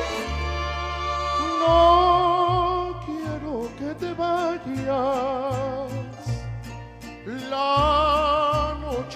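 Mariachi playing a bolero: a male voice singing with wide vibrato over violins, with a guitarrón bass line stepping from note to note underneath.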